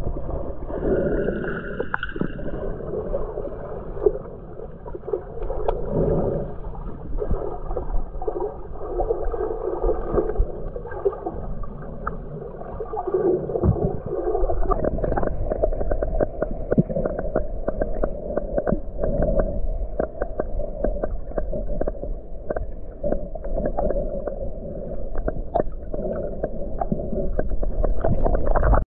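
Muffled underwater sound of a camera submerged while snorkeling: a constant low rumble of moving water with gurgling, and from about halfway on many small clicks and pops.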